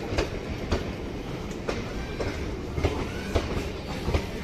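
An Indian Railways passenger train pulling out of the station, its coaches rolling past with a steady low rumble and irregular clacks of wheels over rail joints, a few a second.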